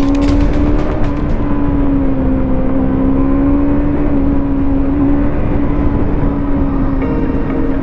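Motorcycle engine running at a steady cruising speed, its pitch holding nearly level with only slight rises and falls, under heavy wind rumble on the microphone.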